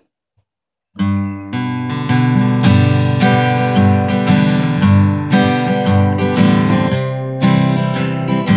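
Acoustic guitar playing chords, the instrumental opening of a song, starting suddenly about a second in after near silence.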